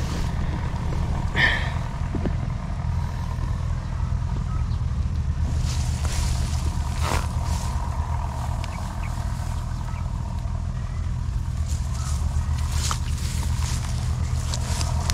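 Steady low drone of a running engine, with a few light clicks and a short high squeak about a second and a half in.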